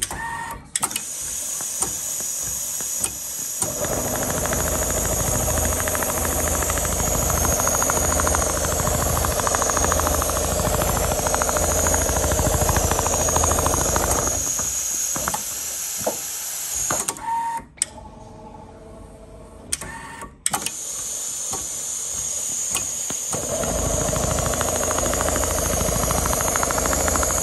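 CNC upholstery sewing machine stitching a quilted hexagon pattern into seat material: a fast, even needle rhythm over a low hum and a steady high hiss. It goes quieter twice, about halfway through and again a little later, then picks up again.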